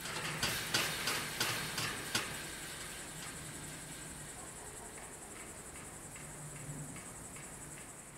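Crickets chirping steadily. In the first two seconds a few sharp clicks or knocks sound over them.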